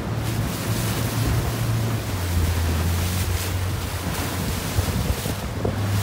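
Wind of about 21 knots buffeting the microphone over choppy sea and breaking waves, with a steady low motor hum underneath that drops slightly in pitch about two seconds in.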